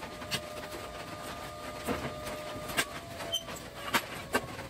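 Scattered metal clanks and knocks as a steel plate and tools are handled on a steel welding table, over a faint steady hum that fades out near the end.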